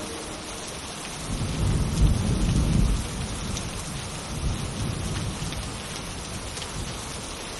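Steady rain with a low rumble of thunder that swells about a second and a half in, peaks, and fades again by about three seconds.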